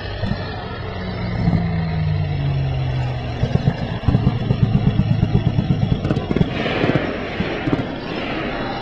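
Tank engine sound with clattering, its note dropping in pitch during the first few seconds, then a fast, even low chugging.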